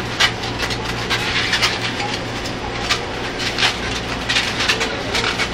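Latex modelling balloons squeaking and rubbing in a run of short, irregular crackles as they are twisted into a balloon hat, over the steady low hum of a moving metro train.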